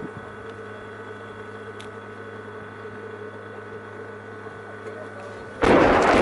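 A low steady background hum, then about five and a half seconds in the demolition charges bringing down the power plant go off: a sudden, loud, rapid crackling volley of blasts that keeps going.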